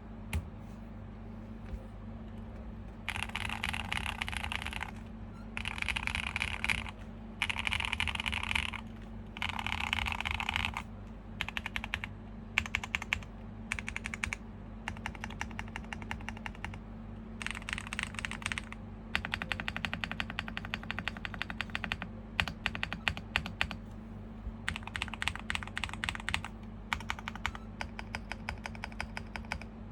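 Typing on a QK65 mechanical keyboard with a POM plate, stock Epsilon switches, GMK keycaps and full foam inside. After about three quiet seconds come four short runs of rapid keystrokes, then scattered single keys, then steady continuous typing.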